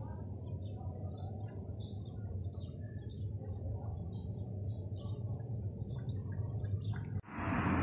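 Small birds chirping now and then over a steady low outdoor rumble. Near the end the sound cuts out for a moment and a much louder, steady noise comes in.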